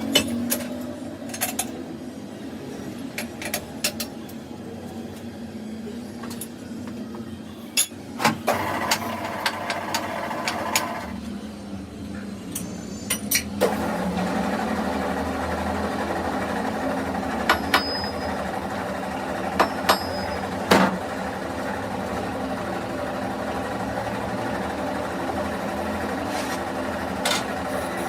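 Metal tools clinking and knocking in a machine shop, then about halfway through a shop machine starts and runs steadily, with a few more sharp knocks over it.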